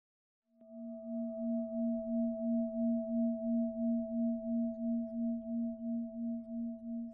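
A metal bell-like tone starts suddenly about half a second in and rings on. It is a low steady note with a higher overtone, wavering in loudness about three times a second, swelling and then slowly fading.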